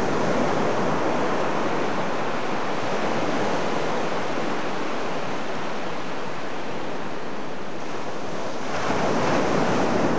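Ocean surf washing up the beach in a steady hiss, with a wave surging louder about nine seconds in.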